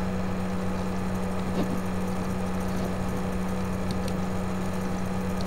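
Steady low background hum with a faint hiss, and a couple of faint clicks about a second and a half and four seconds in.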